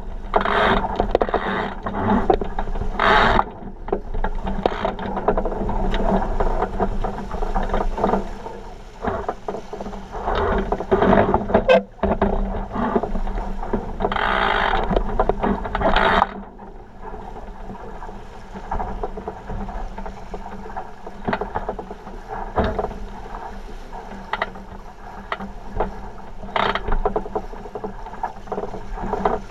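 49er skiff sailing fast: water rushing and splashing along the hull, with frequent short knocks and clicks. It is louder and busier for the first half, easing off about sixteen seconds in.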